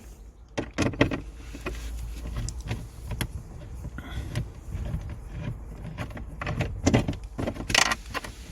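Scattered clicks and light knocks of a Torx screwdriver and hard plastic dashboard trim as the screws holding the centre tray are undone.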